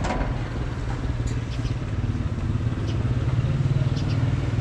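A motor vehicle's engine running steadily, growing a little louder about three seconds in.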